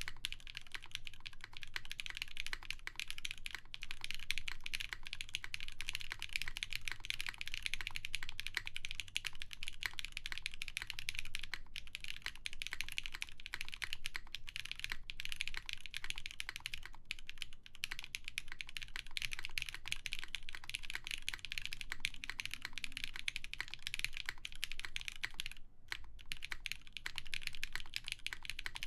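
Continuous fast typing on a custom mechanical keyboard with lubed Zakus switches on a full polycarbonate plate with GMK keycaps: a dense, rapid stream of key clacks with brief pauses.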